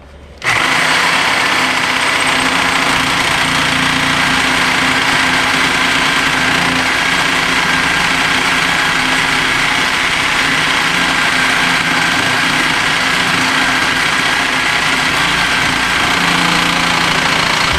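Corded reciprocating saw (Sawzall) running steadily as it cuts through a lawnmower's steel exhaust pipe to remove the muffler. It starts suddenly about half a second in and keeps an even, loud drone.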